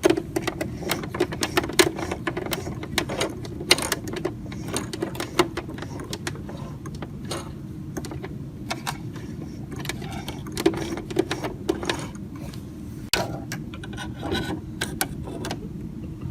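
Sewing machine being handled while it is threaded and set up: irregular clicks and knocks from its parts over a steady low hum.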